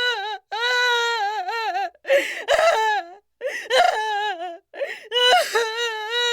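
Baby crying intensely: a run of drawn-out wailing cries with a wavering pitch, broken by short gasping breaths between them.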